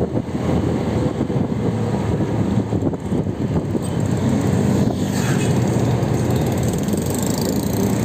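Motor vehicle running with road noise, a steady low rumble.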